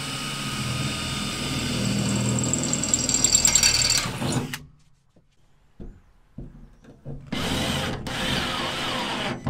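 Cordless drill with a bit fitted, drilling up into a wooden ceiling batten. It runs steadily and stops about four and a half seconds in, then after a few light knocks it starts again near the end, with a short pause.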